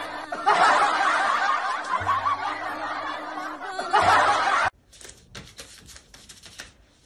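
Dubbed snickering laughter over music with steady bass notes, ending abruptly about two-thirds of the way through. Faint taps and rustles follow.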